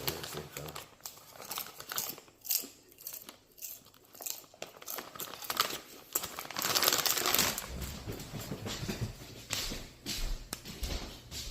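Snickers popcorn bag crinkling in irregular bursts as it is handled, with a longer rustle about seven seconds in.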